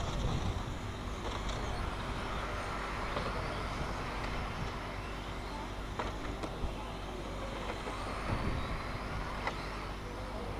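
Electric radio-controlled racing trucks running laps on an asphalt track: a faint motor whine and tyre noise over a steady background, with a few light clicks.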